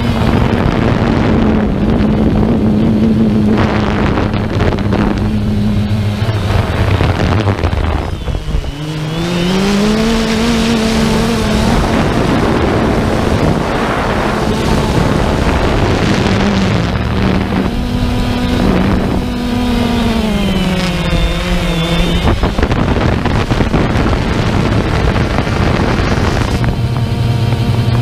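DJI Phantom 1 quadcopter's motors and propellers buzzing loudly, picked up by the camera on board, with wind rushing over the microphone. The buzz glides down and back up about a third of the way in, then rises and falls again about two-thirds through as the motor speeds change.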